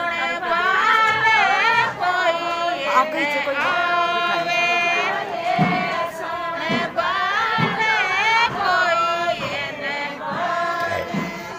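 A group of women singing a Rajasthani (Shekhawati) folk song together, with a few low thumps in the middle.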